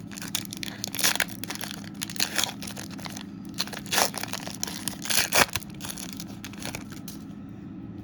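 Foil trading-card pack wrapper crinkling and tearing as it is opened and handled, in irregular rustles with a few louder rips, settling down near the end.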